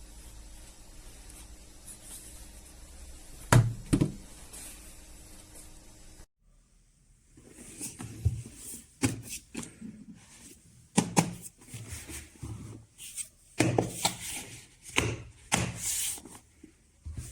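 Handling noise: two knocks about three and a half seconds in over a low hum, then, after a sudden drop about six seconds in, a run of irregular knocks, clicks and rubbing as objects are moved and set down on a hard surface.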